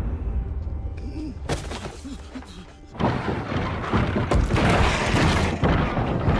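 Film soundtrack: dramatic score mixed with heavy crashes and thuds, turning into a sudden, dense, loud stretch of impacts about three seconds in.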